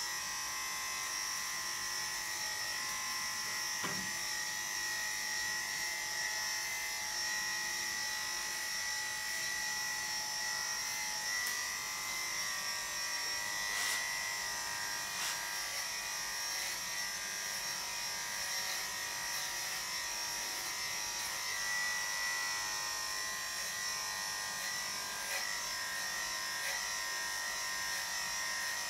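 Electric dog grooming clippers running steadily with a high hum as they shave a bichon frise's coat.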